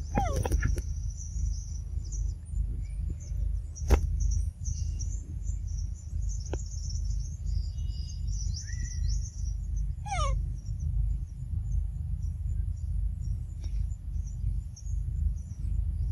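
Birds chirping over a steady low rumble, with a quick falling-pitch call at the start and again about ten seconds in, and a single sharp click about four seconds in.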